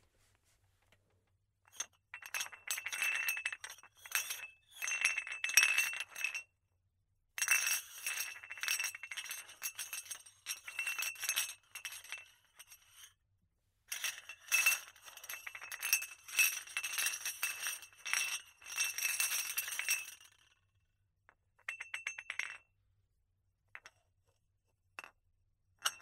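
Crockery rattling: cups and plates clinking rapidly against each other with a clear ringing note, in three long bouts of several seconds each, followed by a few short rattles near the end.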